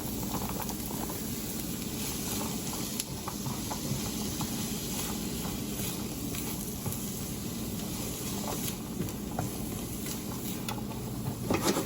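Chopped cauliflower, corn and black beans sizzling steadily in olive oil over medium heat, with scattered light clicks.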